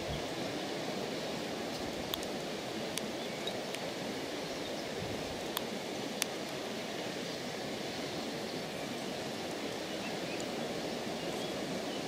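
Steady outdoor background noise with a few faint, sharp ticks scattered through the first half.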